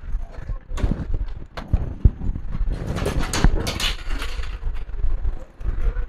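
Irregular clicks and knocks of a laptop and its parts being handled on a workbench, hard plastic tapping and clattering.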